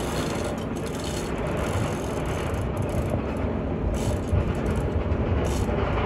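Construction machinery engine running steadily with a low rumble, with scattered light rattles and clinks.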